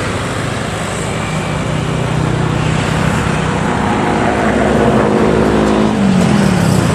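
Long-tail boat engine running at speed, with the rush of the boat's wake over it. The engine grows a little louder and its pitch falls near the end.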